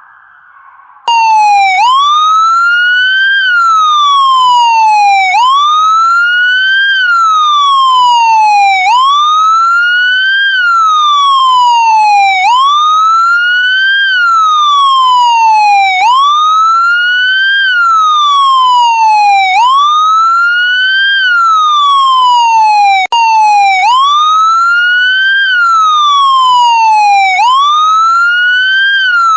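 Police car siren sounding a continuous wail, each cycle rising quickly in pitch and falling more slowly, repeating evenly; it comes in about a second in.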